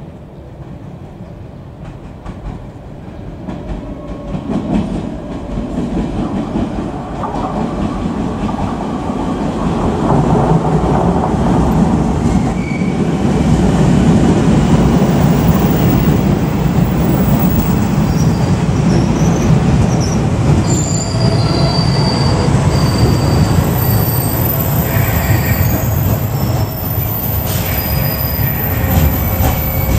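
JR 381 series electric multiple unit running past on the track, its rumble growing louder over the first half and then staying loud. From about two-thirds of the way through, high-pitched squeals come and go over the running noise.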